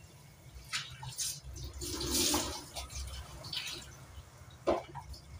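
Washing dishes at a stainless-steel sink: water from the tap splashing in short bursts, the strongest about two seconds in. A sharp knock of dishware against the sink near the end.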